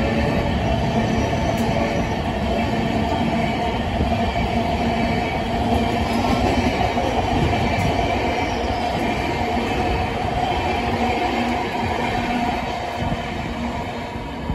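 LHB passenger coaches of an express train running past at speed: a steady rumble and rattle of wheels on rail with a held whine over it. The sound falls away near the end as the last coach goes by.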